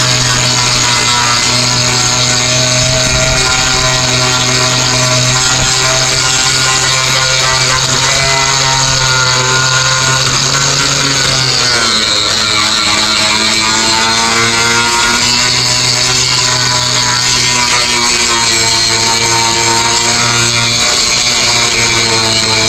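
Handheld electric power tool running steadily while sanding fiberglass on a boat hull. Its whine drops in pitch about halfway through as it bears down, then climbs back.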